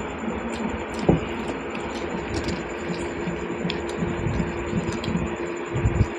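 A steady mechanical hum with a low drone, under small clicks and noises of eating, with a sharp knock about a second in and another near the end.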